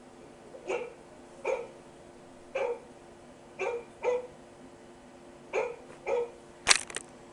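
A dog giving short, sharp barks, about seven in a row with uneven gaps, followed by a brief loud crackle near the end.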